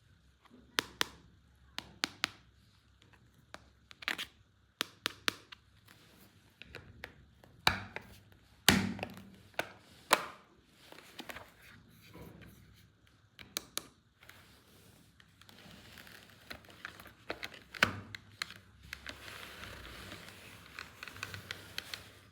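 Plastic toy pieces and packaging from a toy car playset being handled: a scattered series of sharp clicks, taps and knocks, then crinkling rustle over the last few seconds.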